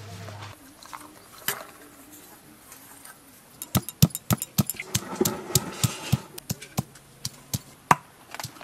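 Stone pestle pounding ginger, garlic and green chillies on a wooden board: sharp knocks about three a second, starting about four seconds in.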